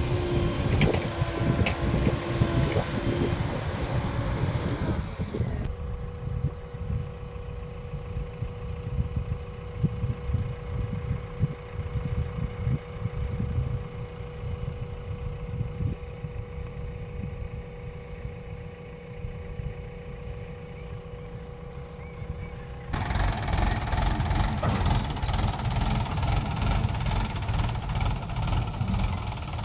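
Swaraj 744 XT tractor's diesel engine running steadily, heard close up. About three quarters of the way through, the sound cuts to louder, rougher engine noise from a tractor and backhoe working at a sand pit.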